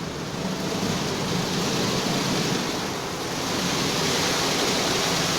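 Automatic car wash machine spraying water over a car: a steady, loud rush of water jets with the machine running, swelling a little about four seconds in.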